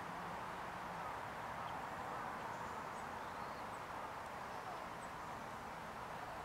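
Steady outdoor background rush with a few faint, short, high-pitched bird chirps scattered through it.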